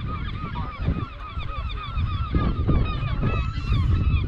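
A colony of gulls calling, many short overlapping cries at once, from cliffs where they nest. A gusty low rumble of wind on the microphone runs underneath.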